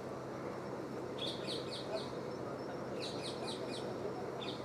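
A small bird chirping in two quick runs of short, high chirps, over a steady low murmur of people.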